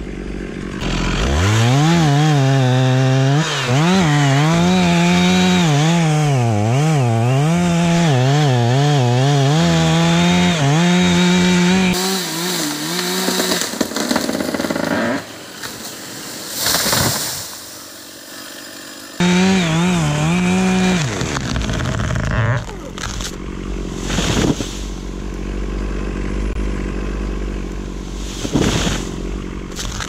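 Stihl MS 460 two-stroke chainsaw revving up and cutting, its engine pitch wavering up and down under load. Partway through it drops away for several seconds with a brief rushing noise, then revs hard again before falling back low, with scattered knocks near the end.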